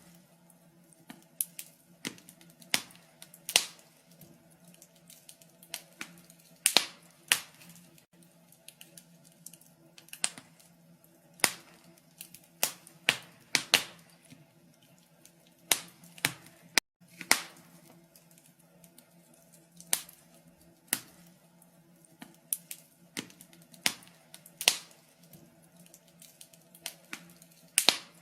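Wood fire crackling in a fireplace: irregular sharp pops and snaps of burning logs, some loud and some faint, over a faint steady low hum.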